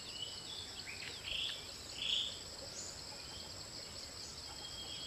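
Steady high-pitched buzz of an insect chorus with a fainter constant high whine above it. Two short bird calls about a second and a half and two seconds in are the loudest sounds, and thin whistled bird notes come later.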